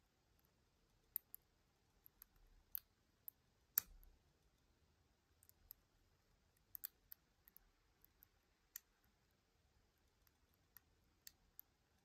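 Faint, irregular clicks of a lock pick working the pins of a Harry Bow Chicane challenge lock held under tension. The loudest click comes just under four seconds in.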